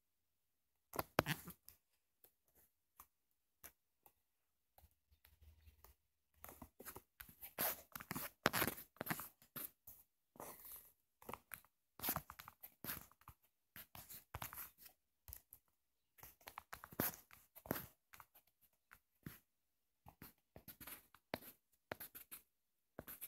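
Faint, irregular scratching and tapping of strokes being drawn on a phone's touchscreen, in short bursts with pauses between them.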